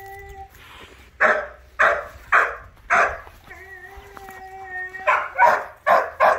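A dog whining, then barking: four single barks about half a second apart, a second high whine, and a quicker run of barks near the end.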